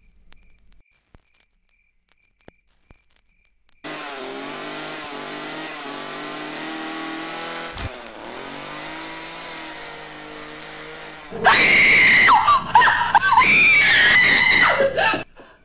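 A chainsaw engine starts up and runs steadily, its pitch dipping briefly partway through. Then a much louder scream breaks in over it for about four seconds and cuts off suddenly.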